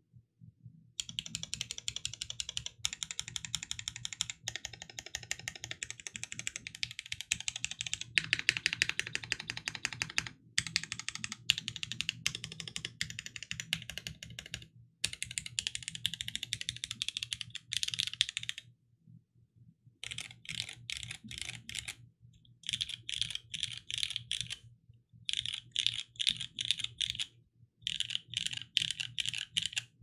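Typing on a NEO Keys Palette Carbon G67 mechanical keyboard with lubed Cherry MX Black Hyperglide linear switches on a carbon fibre plate and case, giving a muted clack. The keystrokes run almost unbroken for about eighteen seconds, then, after a short pause, come in four bursts of about two seconds each.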